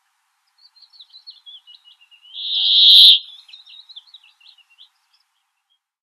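Brambling singing: a quick run of short high chirps, with one loud, harsh, buzzing note of about a second in the middle.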